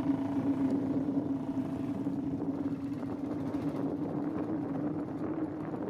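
A steady engine drone at constant speed, with a rushing haze over it, slowly getting quieter.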